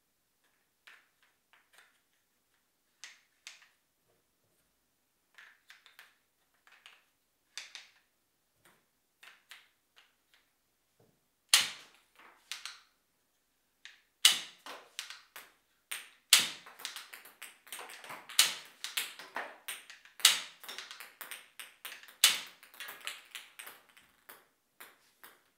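A hand-worked wooden ping pong ball revolver: scattered light clicks and taps of its wooden parts, then from about halfway through a louder, dense run of sharp clacks and knocks.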